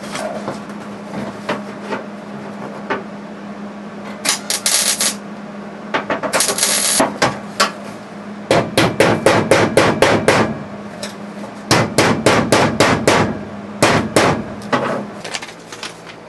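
Hand hammer striking the new steel floor pan of a 1974 Plymouth Duster, knocking its edge down along the transmission tunnel seam. The blows come in quick runs of several a second, with pauses between.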